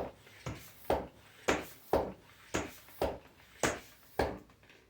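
Manual bicycle tire pump being worked in steady strokes, about two a second, as a repaired tire is inflated toward 40 psi. There are about eight strokes, and they stop just before the end.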